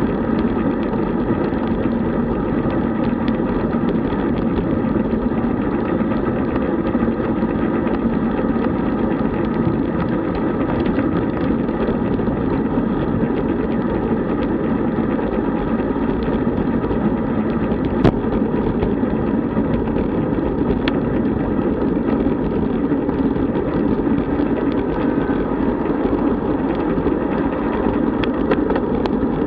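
Steady wind rushing over the microphone of a camera mounted on a road bike riding at about 30–37 km/h, mixed with tyre and road noise. There is one sharp click a little past the middle.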